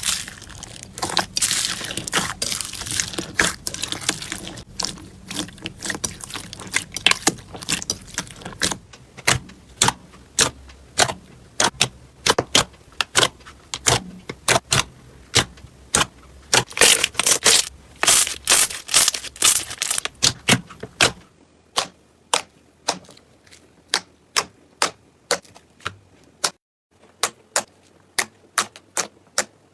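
Slime being squeezed and kneaded by hand: dense crackling at first, then a long run of sharp clicking pops, two or three a second, which become fainter against a quieter background near the end.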